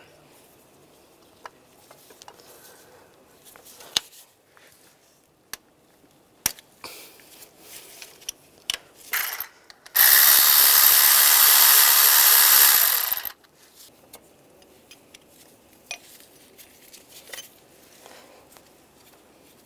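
Cordless electric ratchet running for about three seconds, about ten seconds in, backing out a vacuum pump mounting bolt on a VW 1.9 TDI engine; scattered light clicks and knocks of tools on the engine before and after.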